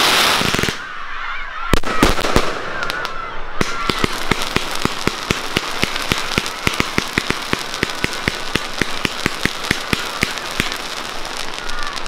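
Professional fireworks display: a glittering shell burst crackles in the first second, a few sharp bangs follow about two seconds in, then from about four seconds on comes a rapid run of sharp cracks, several a second, as a fan of comets rises trailing crackling sparks.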